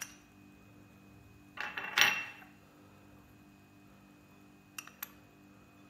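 Steel spoon clinking against small glass bowls while ground powder is spooned from one bowl into another. A few light taps, the loudest about two seconds in with a brief ring, and two quick taps near the end.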